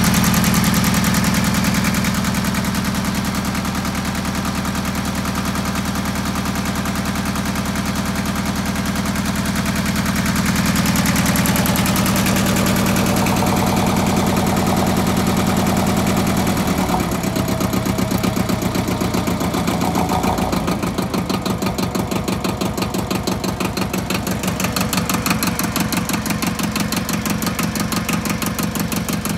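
Yanmar 2210D compact tractor's 22 hp two-cylinder diesel engine idling at low rpm. About two-thirds of the way through the sound changes and its firing beats become slower and more distinct, a low tick-over.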